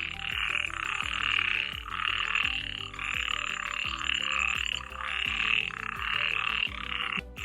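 A chorus of many frogs calling at once after rain, a dense rasping wall of calls that swells and dips every second or so.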